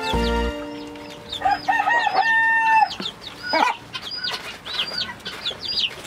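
Chicken and quail chicks peeping over and over in short, high, hooked calls. About two seconds in, a lower and longer chicken call is heard among them.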